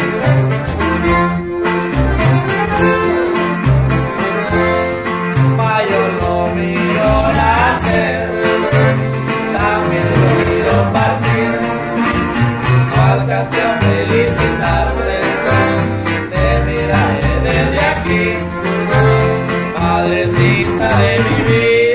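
Norteño corrido played by accordion, guitar and tololoche (plucked upright bass), the bass walking in a steady rhythm under accordion melody runs.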